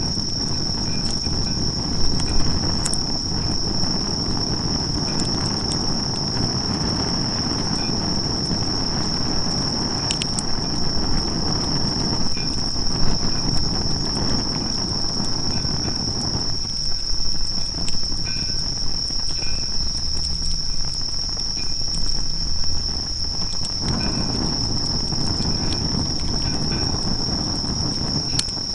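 Insects trilling steadily at one high pitch, with fainter chirping lower down. Beneath it runs a low rumbling noise that drops away for several seconds past the middle, and a few sharp clicks come now and then.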